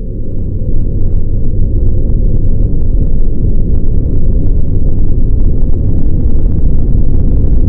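Loud, deep rumbling sound effect that swells over about the first second and then holds steady. It is muffled, with nothing high-pitched in it.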